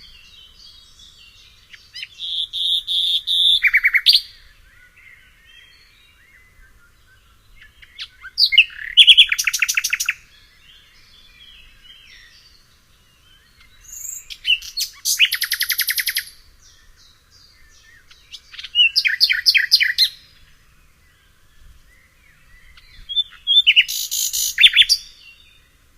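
Songbird singing in short phrases of rapid, repeated high notes, five phrases spaced a few seconds apart with quiet pauses between.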